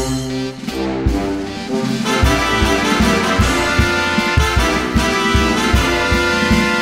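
Background music with horns; a steady beat comes in about two seconds in.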